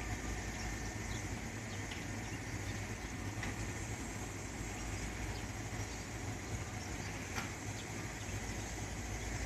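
Steady low hum of a Tobu 350 series electric train, with a few faint ticks.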